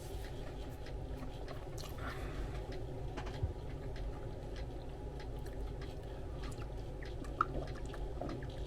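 Someone chewing a sub sandwich with faint wet mouth sounds and small clicks, over a steady low hum.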